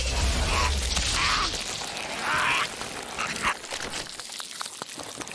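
A man choking and gasping in four short, rasping breaths as the poisonous flower smoke kills him, followed by faint scattered crackles.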